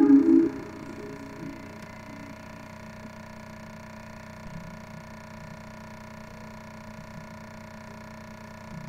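Spooky music ends about half a second in. What remains is a steady hiss of VHS tape static with a faint electrical hum.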